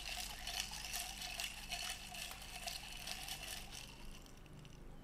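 Ice cubes and a metal straw clinking and rattling in a tall glass of iced coffee as it is stirred, a quick run of clicks with a light ringing of the glass, dying away about four seconds in.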